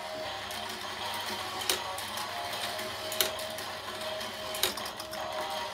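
Battery-powered toy car track's motorized lift running with a steady whir, with a sharp plastic click about every one and a half seconds as the toy cars are carried up and sent round the spiral track.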